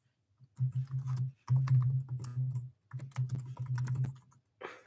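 Typing on a keyboard: fast runs of key taps in several bursts with short pauses between them.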